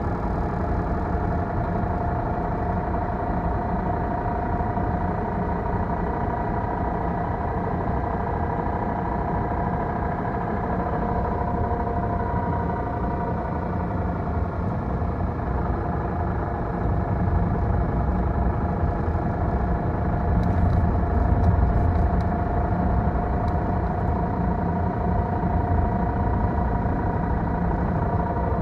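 Honda N-ONE 660cc kei car driving, a steady whine of several tones sounding over the low engine and road rumble. The whine comes from inside the CVT and is the sign of an internal CVT fault, not a hub bearing.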